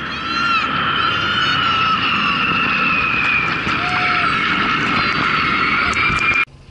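A formation of military aircraft flying low overhead: loud engine roar with a high whine that slowly falls in pitch as they pass. It cuts off abruptly near the end.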